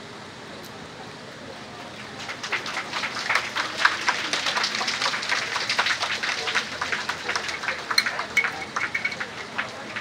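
Crowd clapping, starting about two seconds in and dying away near the end.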